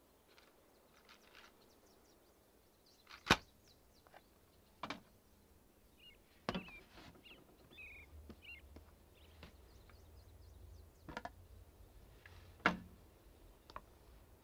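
Scattered sharp clicks and knocks of small objects being handled, a small metal tin among them, loudest a little past three seconds in and again near the end. A few faint bird chirps come in between.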